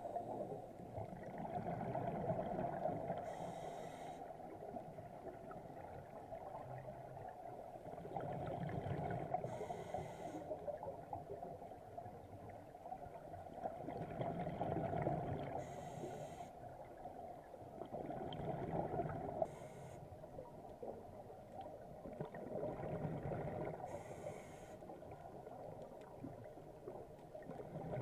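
Scuba diver breathing through a regulator underwater: each breath brings a short hiss and a bubbling rumble of exhaled air, about five breaths at a slow, even pace.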